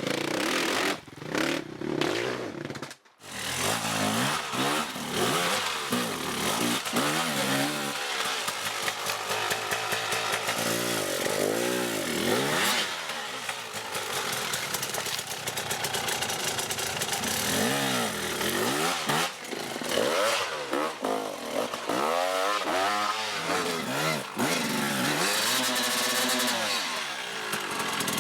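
Dirt bike engines revving, the pitch climbing and falling again and again as the throttle is worked and gears change. The sound cuts out briefly about three seconds in.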